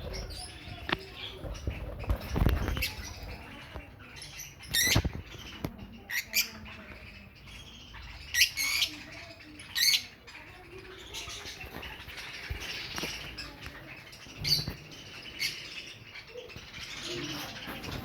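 Small caged birds chirping: short, high calls every second or few, over a steady rustle with a few knocks in the first few seconds.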